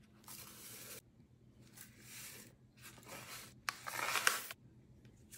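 A foil seasoning packet of au jus gravy mix crinkling in the hand as the powder is shaken out of it, in four short rustling bursts, the loudest about four seconds in.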